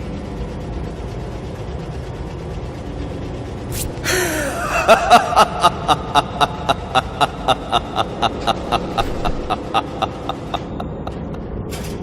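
A sudden swish about four seconds in, then a run of about two dozen evenly spaced mechanical clicks, about four a second, growing fainter until they stop.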